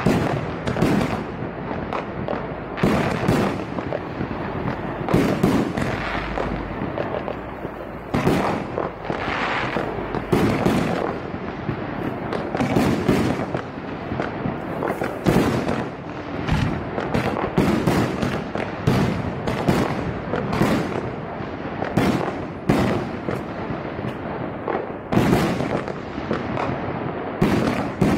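49-shot firework cake firing its tubes one after another: a steady string of bangs from the launches and the shells bursting overhead, roughly one or two a second.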